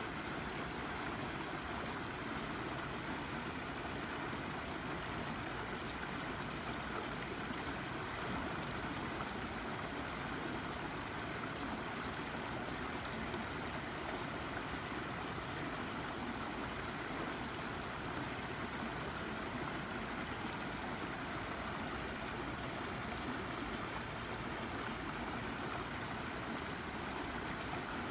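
A shallow brook babbling over a rock, a steady unbroken rush of running water.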